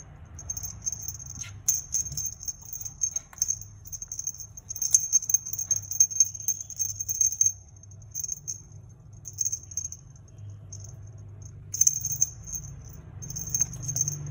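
Small bell on a cat wand toy jingling in irregular bursts as kittens bat and bite at it, with a lull in the middle, plus a few light taps.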